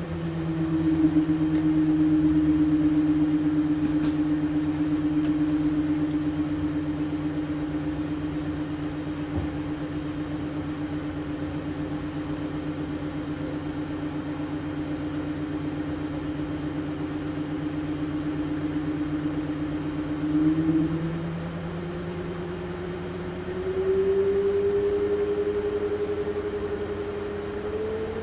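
Arctic Cooling BioniX F120 120 mm PC fan running with a loud droning hum. The pitch of the hum falls at the start, holds steady, then rises in two steps near the end. The owner finds it far louder than another fan at the same speed and wonders whether it is defective.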